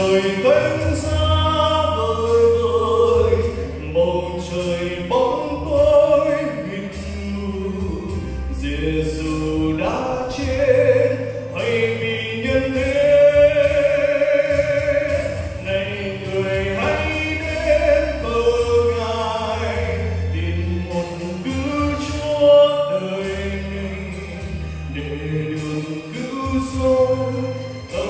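A man singing a Vietnamese Christian song into a handheld microphone, amplified, over instrumental accompaniment with long held bass notes under each phrase.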